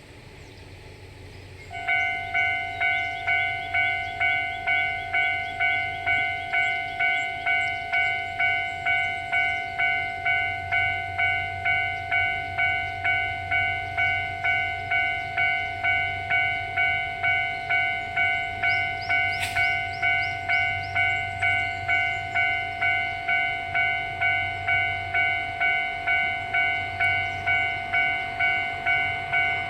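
Japanese railway level-crossing alarm starts about two seconds in and keeps clanging in a steady, even rhythm, the warning that a train is approaching the crossing.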